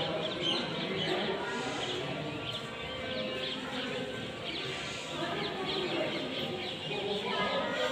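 Many small birds chirping in quick, overlapping calls, over a low murmur of people.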